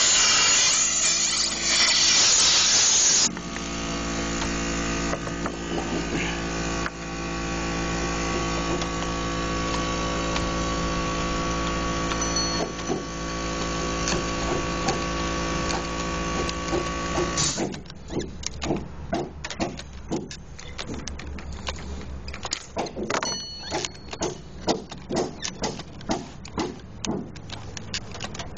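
A loud noisy rush for about three seconds, then a small engine running steadily, which stops about two thirds of the way in; after that, irregular clicks and knocks of tools being handled.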